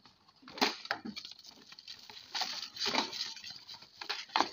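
Plastic wrapping and cardboard packaging of a new head gasket being handled: irregular crinkling and rustling with a few sharper clicks.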